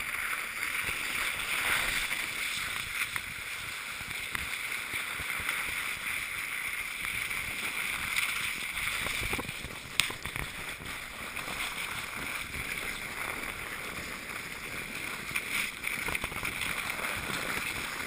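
A sled sliding down a snowy, slushy street, a steady scraping hiss of the sled over snow and ice. A single sharp knock comes about ten seconds in.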